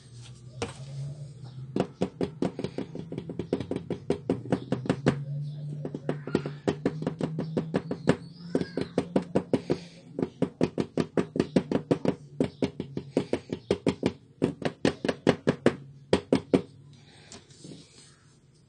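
Rapid series of sharp knocks, about four a second, stopping near the end: the plastic toner hopper of an HP 17A laser printer cartridge being tapped on the table to settle freshly poured toner. A steady low hum runs underneath.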